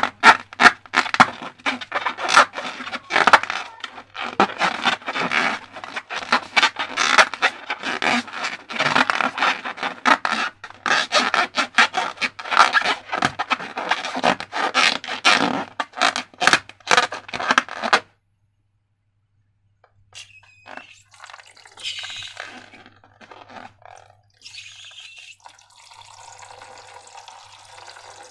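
Rapid, dense scraping and clicking from hands working slime and rubber balloons, which stops abruptly about eighteen seconds in. After a short silence, quieter wet handling and dripping sounds follow.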